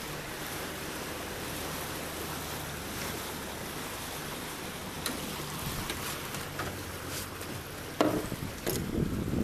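A boat's outboard motor running steadily under way, with wind and water noise rushing past. About eight seconds in, a sudden loud knock followed by clattering and handling sounds.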